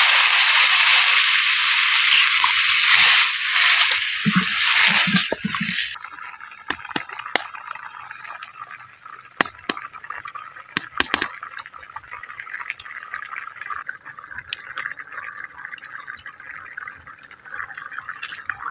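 Water poured into a hot karai of sautéed kohlrabi and potatoes, hissing loudly as it hits the hot pan. About six seconds in the hiss cuts off, and the watery curry simmers and bubbles over the wood fire, with occasional sharp pops.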